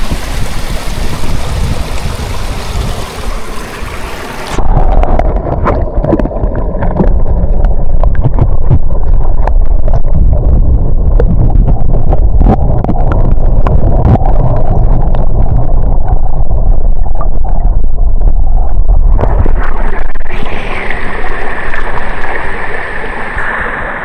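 Wind buffeting the action camera's microphone: a loud, rough low rumble with no clear tone. The rumble sets in heavily a few seconds in, lasts about fifteen seconds and eases near the end.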